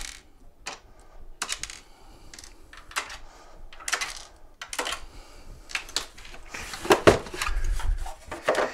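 Irregular light metallic clicks and clatter of hand tools and small screws being worked loose and set down, with a louder knock about seven seconds in.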